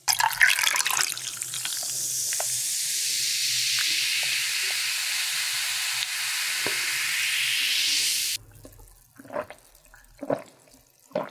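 Carbonated peach soda fizzing in a glass of ice held close: a dense crackling hiss that stops suddenly about eight seconds in. Then three short gulps as it is drunk.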